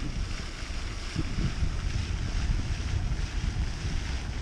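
Wind buffeting the microphone: an uneven, gusty low rumble over a steady hiss.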